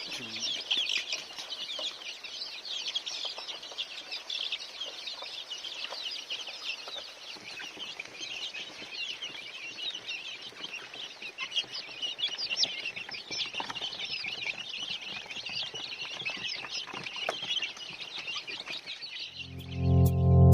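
Many chicks peeping at once, a dense, steady chorus of short high chirps. Music swells in near the end.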